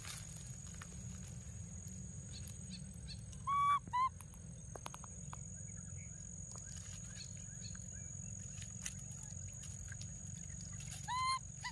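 Baby monkey giving short, high-pitched cries: two close together about three and a half seconds in and one more near the end. A steady high-pitched whine and faint clicks of rustling dry leaves run underneath.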